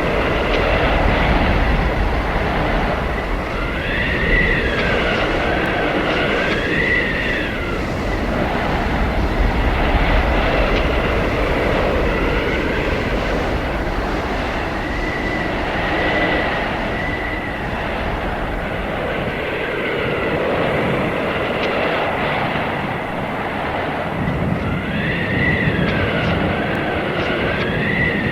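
Howling blizzard wind, a loud, rushing hiss that swells and eases in slow gusts. A whistling tone bends up and down over it three times, about every ten seconds.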